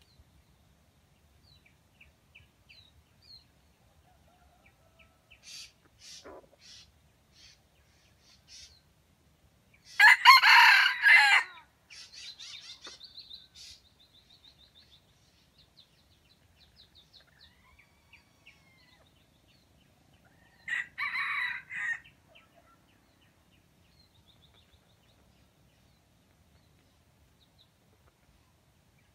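Red junglefowl (wild chicken) rooster crowing: a loud crow about ten seconds in and a shorter one about twenty-one seconds in. Faint small bird chirps come between them.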